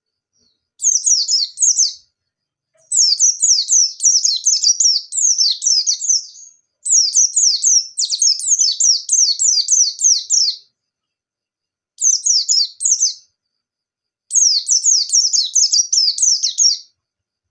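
A white-eye (pleci) singing five loud bursts of rapid, high, quickly falling notes, each one to four seconds long with short pauses between. This is the energetic 'gacor' song that keepers call 'ngalas nembak'.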